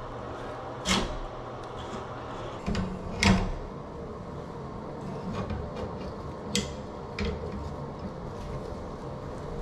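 Brass compression shutoff valve being threaded onto a copper stub-out and tightened with two wrenches: scattered metal clinks and knocks, the sharpest about a second and about three seconds in.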